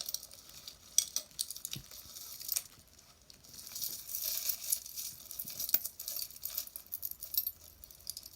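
Pieces of jewelry clinking and jangling against each other as they are handled and sorted, with a sharp click about a second in and a busier stretch of jingling in the middle.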